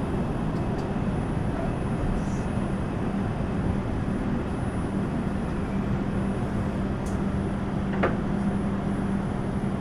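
Steady hum and rumble inside a New York City subway car, with a low steady tone under it and a brief click about eight seconds in.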